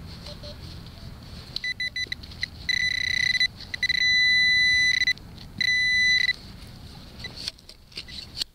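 Garrett Pro-Pointer pinpointer beeping as it is worked through soil in a dug hole. It gives a few short beeps, then rapid pulsing, then a steady tone held for over a second and again briefly. It is closing in on a metal target in the hole, another coin.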